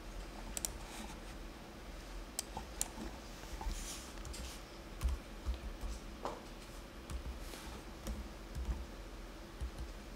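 Typing on a computer keyboard: light, irregular keystrokes and clicks as numbers are entered, over a faint low hum.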